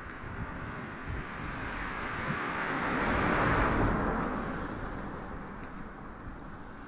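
A car driving past: its tyre and engine noise swells to a peak about three and a half seconds in, then fades away.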